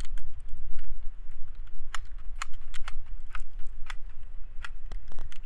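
A series of irregular sharp clicks as 9mm cartridges are pressed one by one into a Hi-Point C9 pistol magazine.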